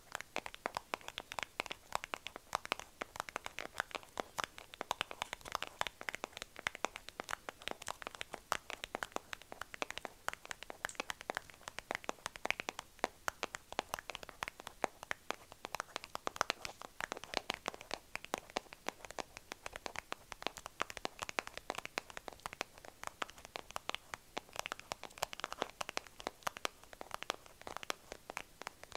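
Long acrylic fingernails tapping and scratching on a clear round plastic container close to the microphone: a fast, unbroken stream of small sharp clicks.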